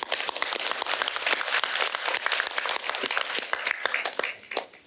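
Audience applauding in a theatre, a dense patter of many hands clapping that thins out and stops near the end.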